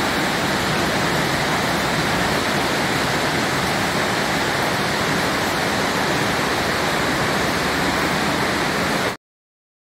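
Cave waterfall: water cascading down the rock face in a steady rushing noise that cuts off suddenly about nine seconds in.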